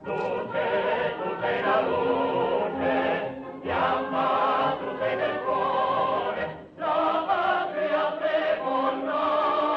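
Music in a choral, operatic style: several wavering, vibrato-laden voice-like lines sounding together, with a brief break about seven seconds in.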